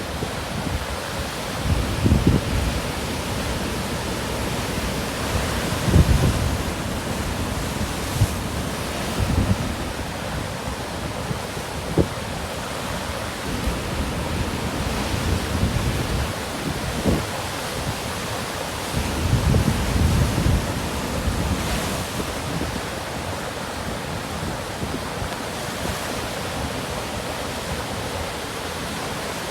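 Rough surf from a typhoon swell breaking and washing along the shore, with strong onshore wind buffeting the microphone in several low gusts.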